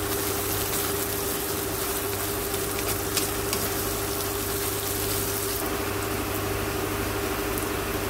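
Sliced onion, ginger and green chilies sizzling as they sauté in a nonstick frying pan, with a few clicks of the spatula a few seconds in, over a steady low hum.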